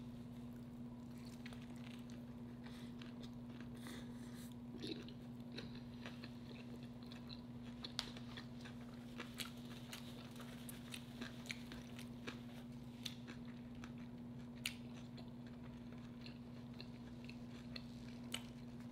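A person chewing a mouthful of smoked burger close to the microphone, with many small scattered mouth clicks, over a steady low hum.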